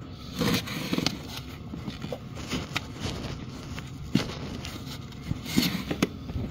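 Hands working the boots onto a snowmobile engine from behind: scattered scraping and rubbing, with a few sharper knocks.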